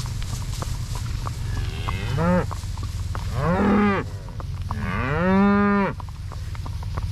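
Cattle mooing, three calls in a row, each rising in pitch and then held, the last one the longest and loudest.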